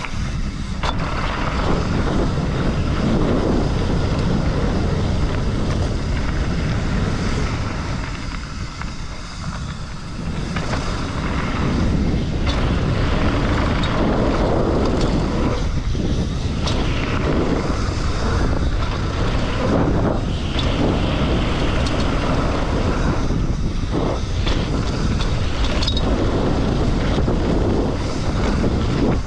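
Mountain bike riding down loose, dusty desert dirt: tyres crunching and skidding, wind noise on the microphone, and the bike knocking and rattling over bumps. The rush eases for a moment about eight to ten seconds in.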